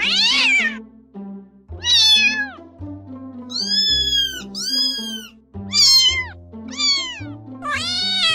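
Cats meowing, about seven separate meows that each rise and fall in pitch, the two in the middle longer and drawn out. Background music plays under them.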